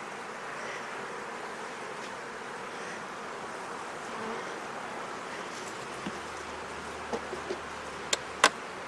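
Steady buzz of a busy honeybee colony in an open hive. Several sharp clicks and knocks come in over the last few seconds, two of them loudest about a second before the end.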